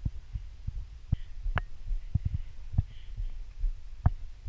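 Footsteps on a dirt trail and bumps from a handheld camera carried by a walking hiker: irregular low thumps about twice a second, some with a sharp click, over a steady low rumble.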